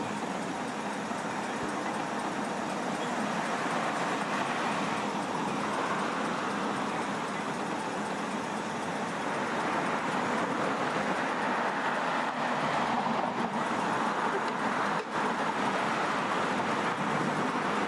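Street traffic noise: motor vehicles passing on the road, as a steady hum that grows louder about halfway through.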